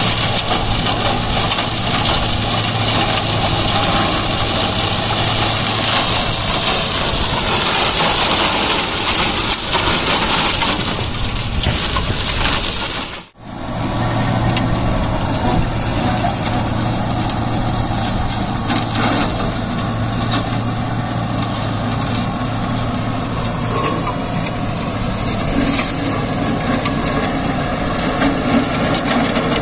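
Deutz-Fahr Agrolux 80 tractor's four-cylinder diesel engine running under load, driving a PTO-powered Maschio Terminator 180 flail shredder that is chopping dry crop residue: a steady, dense mechanical din with a low engine hum. The sound drops out for a moment a little before halfway.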